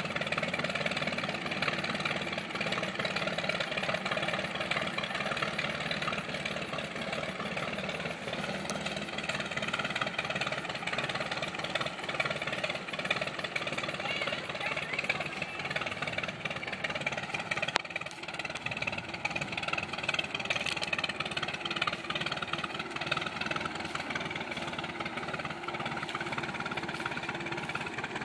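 Farmall F-20 tractor's four-cylinder engine running steadily, a fast even chugging of firing pulses.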